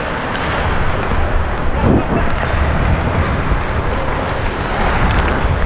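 Ice hockey skates gliding and cutting on the ice, heard from a helmet-mounted camera with wind rushing over its microphone.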